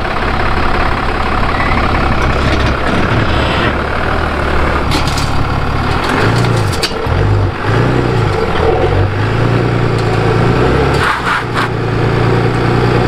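Mercedes-Benz GLE 350d's six-cylinder diesel engine running, its pitch rising and falling a few times around the middle, with a few short clicks.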